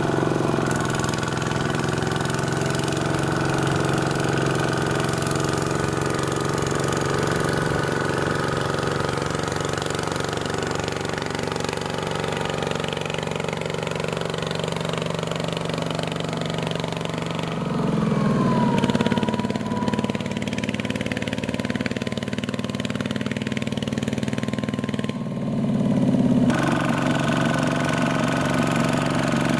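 Small single-cylinder Kubota diesel engine of a mini tractor running steadily, its note shifting higher and louder about eighteen seconds in and again near the end.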